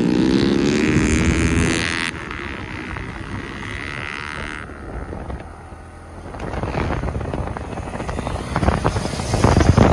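Motorcycle engine running under way, rising slightly in pitch in the first two seconds, with a loud rush of wind on the microphone. The sound changes abruptly about two seconds in and again near five seconds, then grows louder and rougher near the end.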